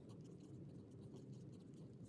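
Faint scratching of a pen writing on paper, in short quick strokes, sped up to double speed.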